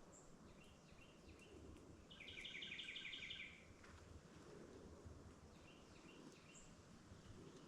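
Faint bird calls in quiet woods: a few short high chirps, and a rapid trill of about eight quick notes a couple of seconds in.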